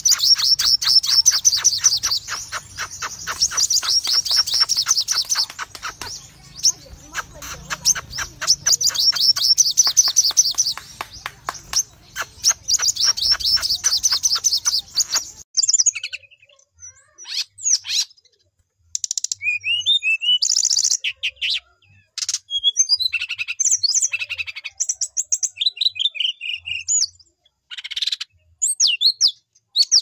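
Recorded songbird song: phrases of fast, sharp repeated trill notes, each run lasting a few seconds with short gaps. About halfway through it cuts to a different bird giving scattered, varied chirps and whistles.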